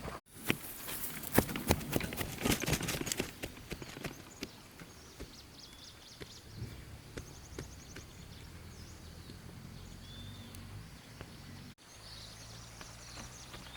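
A quick, uneven run of knocks and taps for the first few seconds, then a quieter stretch with faint short chirps over a low steady hum.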